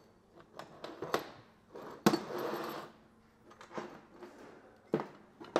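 Metal engine parts clinking and knocking against each other and a stripped-down engine block as they are handled. There is a sharp knock about two seconds in with a brief scrape after it, and a few lighter clicks later on.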